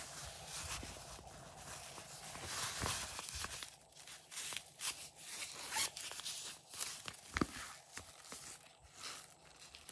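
Hands rubbing and handling a sequin-covered zippered pouch: scratchy rustling broken by many small clicks and scrapes as it is turned over, unzipped and opened.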